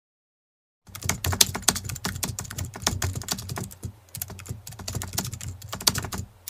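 Typing sound effect: rapid, irregular computer-keyboard key clicks, starting about a second in out of total silence, with a brief lull around four seconds in.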